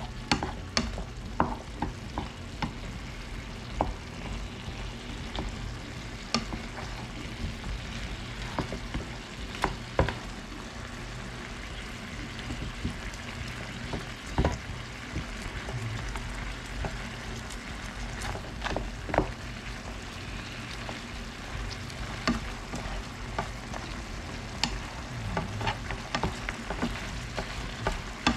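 Curry goat cooking with a steady sizzle in a metal frying pan while a wooden spatula stirs it, knocking and scraping against the pan at irregular moments.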